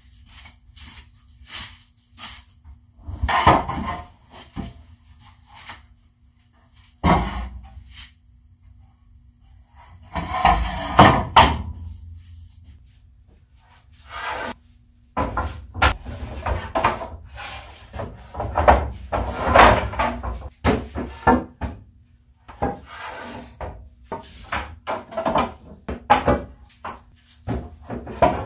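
Wooden boards being handled and set down, with irregular knocks, clatters and scuffs as they bump against each other and a table saw's top, under a faint steady hum.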